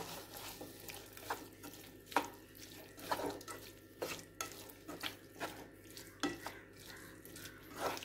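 Spatula stirring and scraping pumpkin and onion pieces around a frying pan, with irregular scrapes and taps about once or twice a second over a faint sizzle of freshly added oil.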